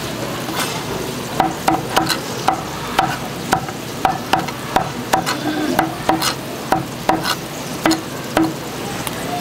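A large kitchen knife chopping boiled pork offal and sundae on a thick wooden cutting board: about twenty sharp knocks, two to three a second, starting a second or so in. A steady hiss runs underneath.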